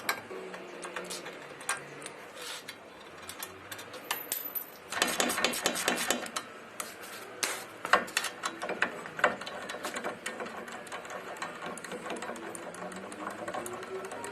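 Ratchet wrench clicking in short runs as the brake caliper bracket bolts are undone, with clinks of metal tools and parts.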